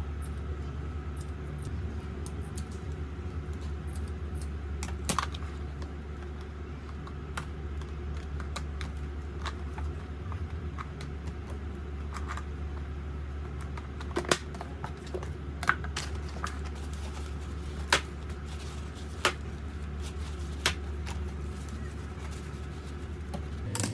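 Scissors snipping through cotton pads and sponge, then a clear plastic storage box being filled and handled, with several sharp clicks a second or two apart in the second half, over a steady low hum.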